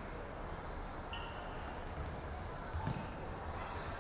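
Indoor basketball game on a hardwood court: a few brief high sneaker squeaks and a single ball bounce just before three seconds in, over a steady hall rumble.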